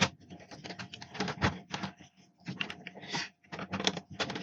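Irregular sharp plastic clicks and rattles as a PlayStation 4's plastic casing panel is slid into place and clipped down.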